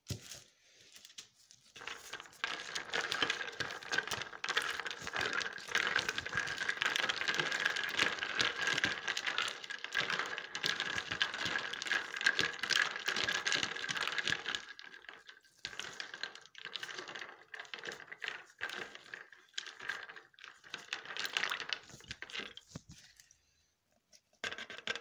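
Stick blender running in a plastic pitcher of soap batter, a steady motor whine with a rapid clattering of the blender head against the container. It runs for about twelve seconds, then comes in several short pulses, with one last brief burst near the end.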